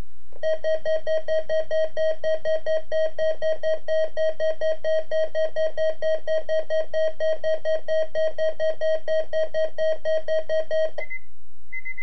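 Weather alert radio sounding its built-in alarm for a weekly test alert: a loud, rapidly pulsing electronic beep, about four pulses a second, that stops about eleven seconds in. Two short, higher beeps follow near the end.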